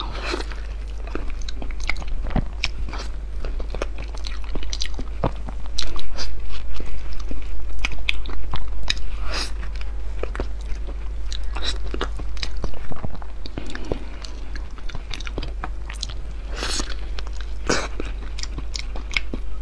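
Close-miked eating of soft, ripe durian flesh: biting, chewing and mouth clicks, growing louder and rhythmic for a few seconds in the middle, about three chews a second.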